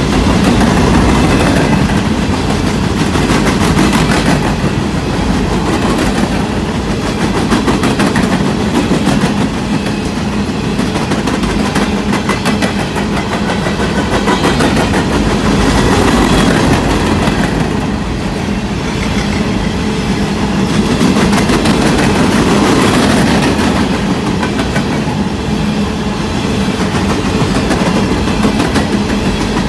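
Coal hopper cars of a CSX coal train rolling past at trackside, loud and steady. The steel wheels make rapid clicks on the rails over a continuous rumble.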